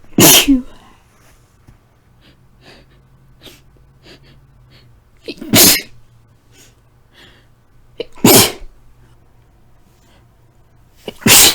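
A woman sneezing four times, a few seconds apart, from a tickle in the nose, with faint short breaths in between.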